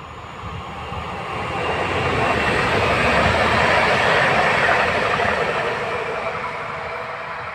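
Stadler FLIRT electric multiple unit passing through at speed without stopping: a steady rush of wheels on the rails that builds to its loudest about four seconds in, then fades as the train moves away.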